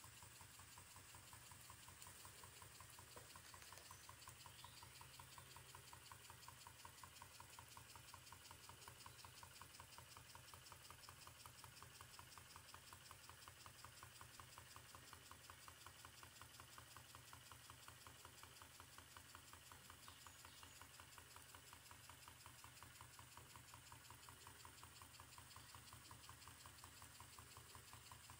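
Twin-cylinder steam engine running at a steady speed: a faint, rapid, even beat that keeps up without change.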